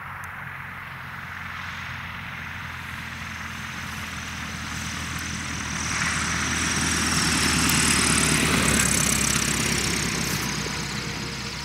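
Van's RV-9A light aircraft's piston engine and propeller running at low power as it lands and rolls out along the runway. It grows louder as it passes, loudest a bit past the middle, with a high whine that slides down in pitch, then fades as the plane rolls away.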